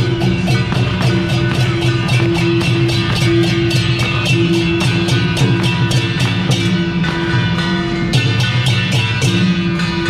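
Temple-procession music: brass hand cymbals clashing in a fast, steady beat over a sustained melody line and a dense low drone.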